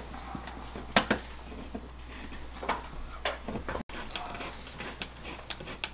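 Scattered clicks and knocks of metal L-track being handled and fastened up against a van's ceiling panels. Two sharp knocks come about a second in, with lighter taps later, over a low steady hum.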